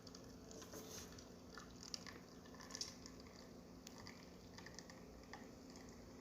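Faint steady hum from the Zacconi espresso machine, with a few small scattered clicks and drips as the test shot finishes.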